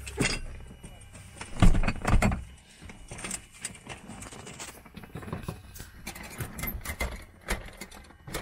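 A Cessna Caravan door being pulled shut: two heavy thuds about two seconds in, followed by scattered clicks and rustling.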